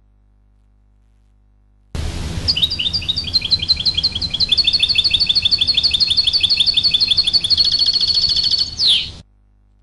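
European goldfinch song: a fast trill of repeated high chirps, about nine a second, that quickens near the end and finishes with a falling note. A low rumble of background noise in the recording runs under the song and stops with it.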